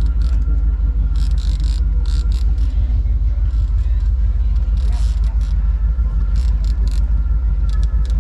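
Steady low rumble of a charter fishing boat underway at trolling speed, with scattered short clicks and brief bursts of noise over it.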